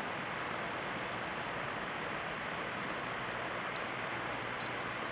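Steady fizzing hiss of a hand-held firework burning. Near the end a glass wind chime (fūrin) rings with a few clear, high tings.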